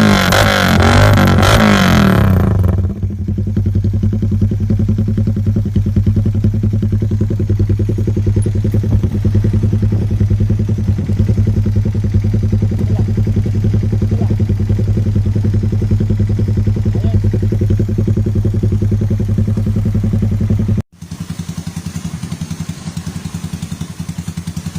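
Suzuki Raider 150's single-cylinder four-stroke engine through an aftermarket exhaust, blipped a few times, then dropping to a steady, loud idle. About 21 s in it cuts abruptly to a quieter idle with a pulsing exhaust beat.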